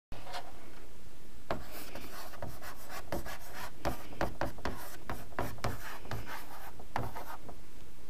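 Chalk writing on a blackboard: a quick run of tapping and scratching strokes as a word is written, stopping shortly before the end.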